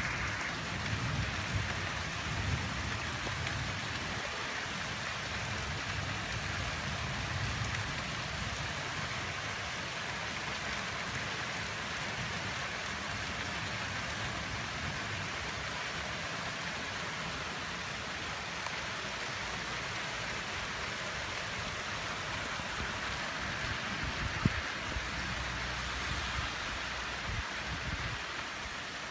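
Steady rain falling during a thunderstorm, with a low rumble of distant thunder in the first several seconds. A single sharp tap near the end.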